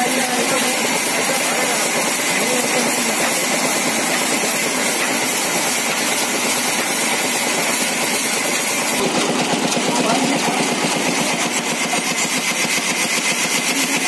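Large sawmill band saw running and cutting through a timber slab as it is fed into the blade: a loud, steady mechanical noise whose tone shifts slightly about nine seconds in.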